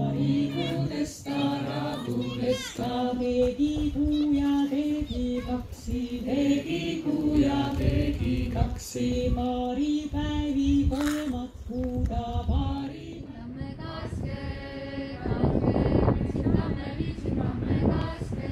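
Wordless choir-like singing, several voices holding long notes that step between a few pitches, with a rougher, noisier passage near the end.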